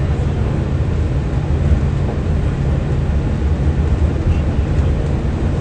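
Walt Disney World monorail running, a steady low rumble.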